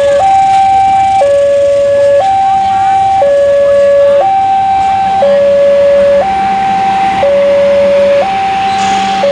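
Two-tone hi-lo siren sound, alternating steadily between a lower and a higher tone, each held about a second, over steady background noise.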